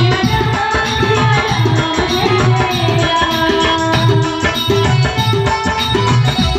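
Loud music played over a DJ sound system: a heavy bass drum beat about twice a second under a held melody line.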